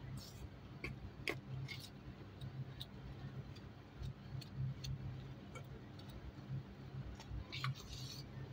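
A utensil clicking and scraping irregularly against a stainless steel mixing bowl while flour and mashed boiled pumpkin are stirred into a dough, with a small cluster of clicks near the end.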